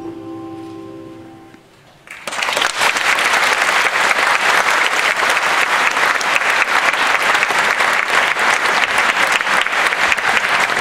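The last held notes of the dance music fade out, and about two seconds in an audience breaks into steady applause that carries on.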